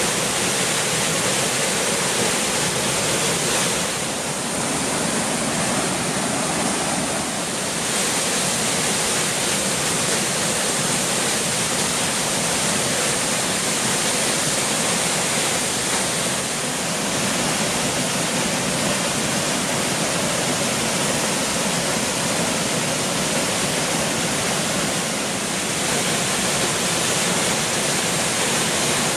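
Waterfall pouring steadily: a constant rush of falling water, easing slightly for a moment three times.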